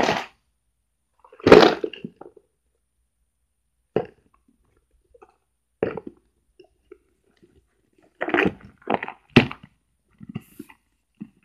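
Scattered knocks and clatter of small objects being handled, loudest about a second and a half in, with a quick run of knocks near the end.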